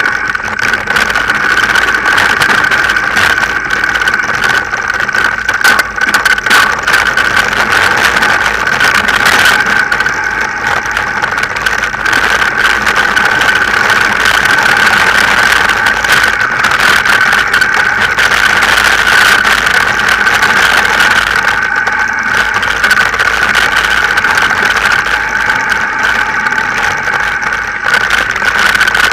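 Mountain bike ride down a rough forest trail, heard from a camera mounted on the bike: constant wind and rolling noise with a steady hum, broken by frequent knocks and rattles from bumps in the trail.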